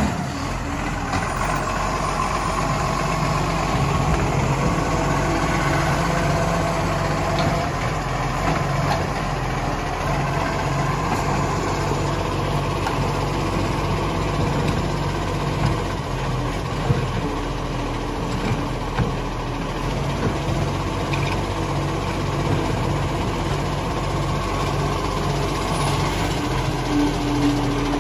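Iveco side-loader garbage truck's diesel engine idling steadily with a low, even pulse, with a thin whine coming and going over it.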